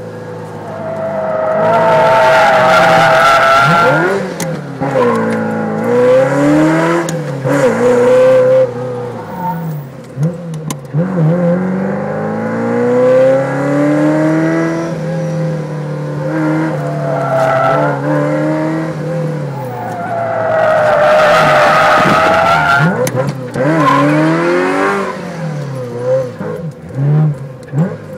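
Ferrari 348's V8 heard from inside the cabin on track, revving up and falling back again and again through the corners. The tyres squeal loudly twice in drifts, about two seconds in and again about twenty seconds in.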